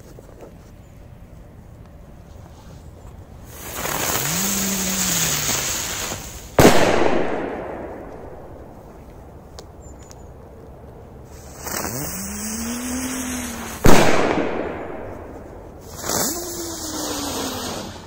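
Three firecrackers go off one after another. Each fizzes for two to three seconds with a low tone that rises and then falls. The first two end in a sharp bang, the second louder, and the third is still fizzing near the end.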